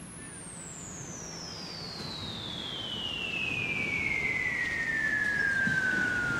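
A single high whistle tone gliding steadily downward in pitch and growing louder, an edited-in sound effect.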